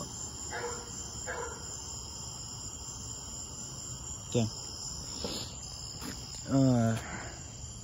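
Steady, unbroken high-pitched trilling of a night-time cricket chorus. A short knock comes about four seconds in, and a brief murmur of a voice follows near the end.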